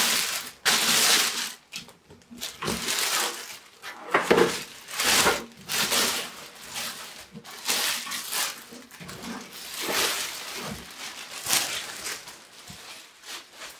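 A clear plastic bag crinkling and rustling as it is pulled off a metal rack-mount computer case, in a run of irregular swishes.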